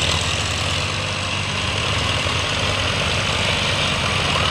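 Belarus MTZ 510 tractor's four-cylinder diesel engine running steadily while pulling a trolley loaded with soil, growing slightly louder as it comes closer.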